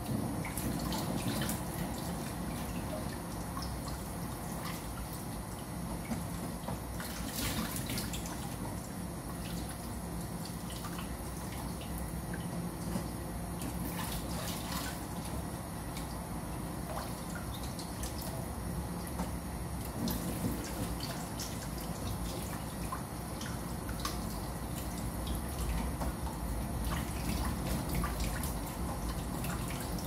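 Kitchen tap running in a thin steady stream, water splashing over hands and dripping into a basin of water as eggs are scrubbed with a sponge, with a few brief clicks and splashes.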